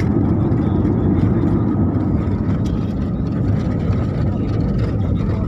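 Jet airliner cabin noise heard from inside the passenger cabin: a steady low rumble of engines and airflow, with no sudden events.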